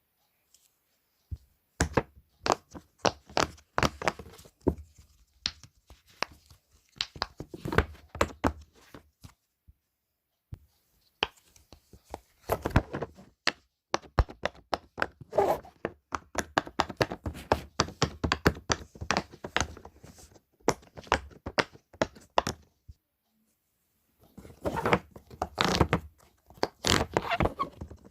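Fidget toys handled close to the microphone: rapid runs of sharp clicks and taps, broken by a couple of short pauses.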